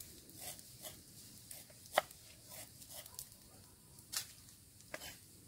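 Scattered light taps and knocks, the sharpest about two seconds in, like a knife and utensils being handled during food preparation.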